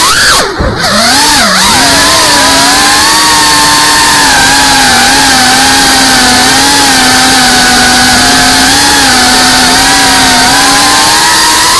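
FPV quadcopter's motors and propellers whining loudly, picked up close by the onboard camera. About half a second in, the pitch drops sharply as the throttle is cut, then climbs back and holds fairly steady with slight wavers as the quad cruises.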